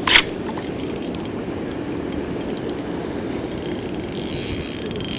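Fishing reel cranked steadily, retrieving line with a young hairtail hooked after a bite.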